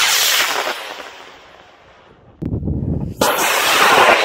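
Aerotech I140 high-power rocket motor igniting at liftoff: a sudden loud roaring rush that fades over about two seconds as the rocket climbs away. About three seconds in, a second loud rush of motor roar comes in, mixed with wind buffeting the microphone.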